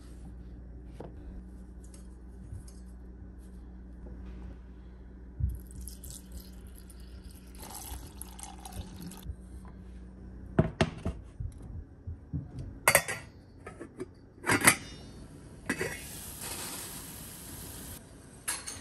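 Kitchen handling sounds: glass and a stainless steel pot clink and knock as they are set down and handled, several sharp strikes in the second half over a low steady hum, with a steady hiss for about two seconds near the end.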